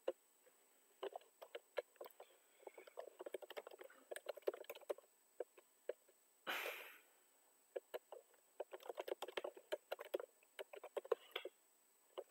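Typing on a computer keyboard: two runs of quick key clicks, entering a password and then a postal code, with a pause about halfway through that holds a brief rushing sound.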